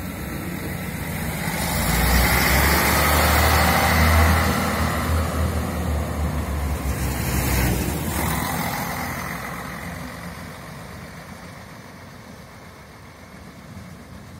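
DB class 641 diesel railcar pulling past close by and away, its engine running under power with a deep drone. It is loudest in the first half and fades steadily as the railcar draws off.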